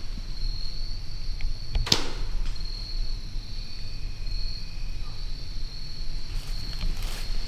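Insects trilling steadily in the woods, a high-pitched chorus that swells and fades slowly. A single sharp click about two seconds in.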